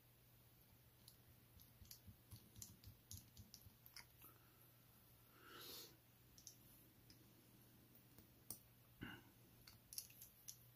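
Faint, scattered small clicks of a precision screwdriver working tiny screws into a watch's steel caseback, with a soft rustle a little past halfway.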